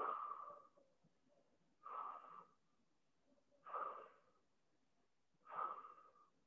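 A person breathing deeply and steadily during a held stretch, with four faint, short breaths about two seconds apart, each with a slight wheezy edge.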